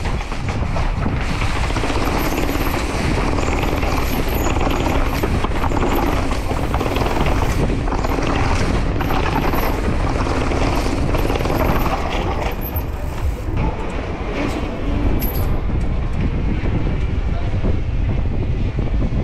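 Wind rushing over an action-camera microphone while a downhill mountain bike rattles over rough paving, its tyres and frame giving a dense run of small knocks.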